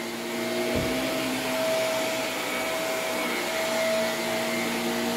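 Shark upright vacuum cleaner running over carpet: a steady motor hum with fixed tones over a hiss of suction. A brief low thump comes about a second in.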